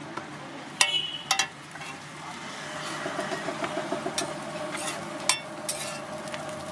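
Metal spatula clanking and scraping on a flat iron griddle as bread slices are toasted and turned. Two sharp ringing clanks come about a second in, then lighter taps over a low sizzle that builds from about halfway.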